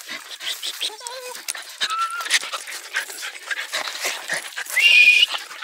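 Excited hunting dogs whining, with short wavering whines and a louder high whine near the end, over scuffling and clicks of paws on dry, twig-strewn ground.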